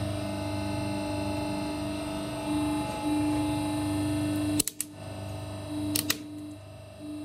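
Hydraulic press running with a steady motor and pump hum as the ram squeezes a small object, which cracks sharply twice in quick succession about four and a half seconds in and again about six seconds in as it breaks apart and a piece flies out.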